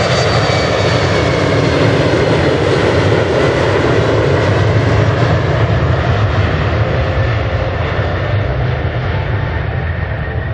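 Embraer 190's twin General Electric CF34-10E turbofans at takeoff power during the takeoff roll: a loud, steady jet roar with a deep rumble and a thin high whine over it, fading slowly over the last few seconds as the jet runs away down the runway.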